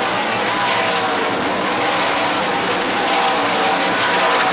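Several NASCAR Craftsman Truck Series race trucks' V8 engines running at speed on the oval, a steady, loud blend of engine notes.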